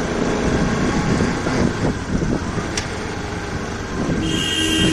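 Motorcycle engine running under way, with road and wind noise. A vehicle horn sounds a steady note near the end.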